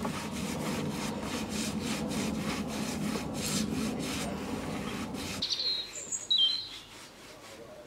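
A paintbrush scrubbing paint onto wooden planks in rapid back-and-forth strokes, about four a second, stopping abruptly about five and a half seconds in. A bird then chirps a few times.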